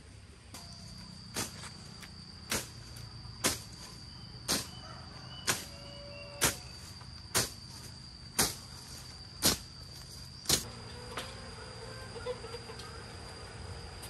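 A steady high-pitched insect drone, like crickets in the weeds, with a sharp tick about once a second, ten times, that stops about ten seconds in.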